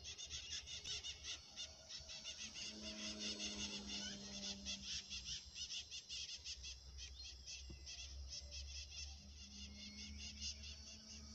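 Rapid, high chirping from wildlife, repeating several times a second. Under it, the faint drone of a radio-controlled model airplane's engine flying high overhead comes in about three seconds in, fades, and returns near the end.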